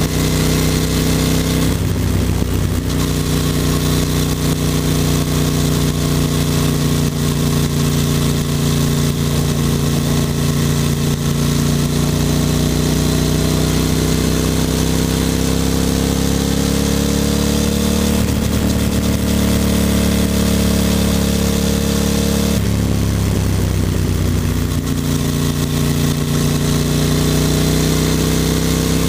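Ducati Monster 620's air-cooled L-twin engine running at road speed, heard close up with wind noise. Its note climbs slowly through the middle and briefly drops away three times: about two seconds in, after about eighteen seconds, and after about twenty-three.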